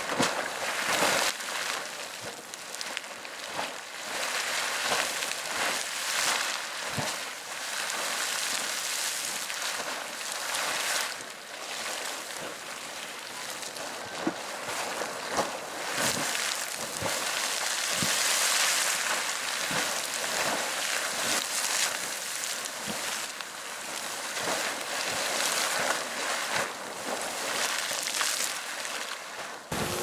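Sawmill Geyser, a fountain-type geyser, erupting: a steady rush of splashing hot water broken by many sharp splashes as brief, overlapping spikes of water burst from its pool and fall back.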